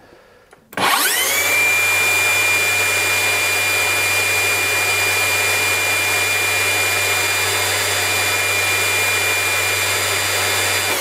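Makita HS003G (GSH01) 40V cordless circular saw, run off 18V batteries paired to 36V through a PDC01 backpack, spinning up free with no load under the trigger about a second in, then running steadily at full speed with a high, even whine. At full speed the blade turns about 5,800 rpm, the same as on the weakest 40V battery.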